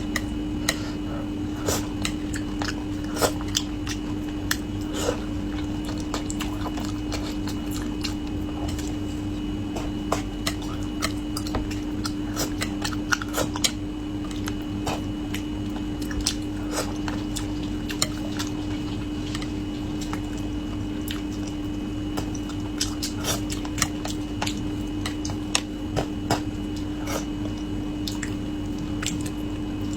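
Close-up eating sounds of a person eating braised carp: irregular sharp clicks and wet smacks from chewing, with utensils clinking now and then, over a steady low hum.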